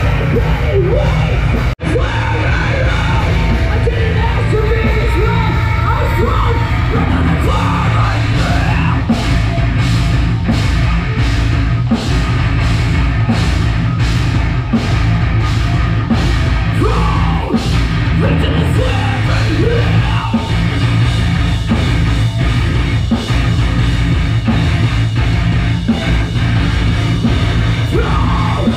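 Loud heavy metal music with pounding drums, distorted guitars and shouted vocals, broken by a split-second dropout about two seconds in.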